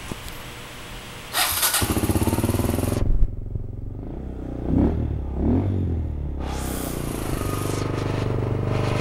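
Kawasaki KLX125 FI's 125 cc single-cylinder four-stroke engine, fitted with an aftermarket muffler, starts about a second and a half in. It is briefly revved twice around the middle, then settles into a steady idle.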